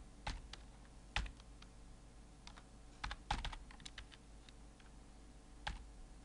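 Typing on a computer keyboard: scattered keystrokes in short irregular runs with pauses between them. The loudest clicks come about a second in and a cluster comes around three seconds in, over a faint low hum.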